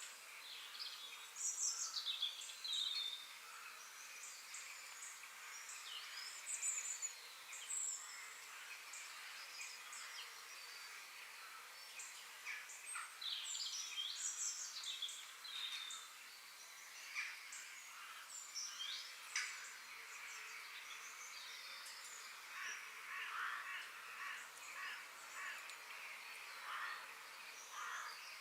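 Forest ambience: many birds chirping and calling, overlapping, over a steady background hiss.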